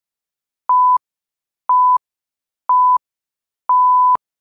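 Electronic workout-timer countdown beeps: three short, identical, single-pitched beeps a second apart, then one longer beep of about half a second near the end. Together they signal the end of the rest countdown and the start of the next circuit.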